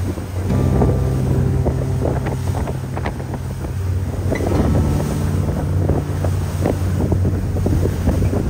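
Passenger ferry under way: its engines make a steady low hum, wind buffets the microphone, and water rushes along the hull.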